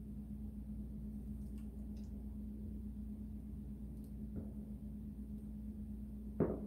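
Steady low electrical hum, with a few faint light clicks and one sharper knock near the end.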